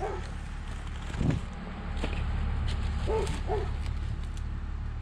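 A dog barks twice, about three seconds in, over a steady low rumble, with a dull thump about a second in.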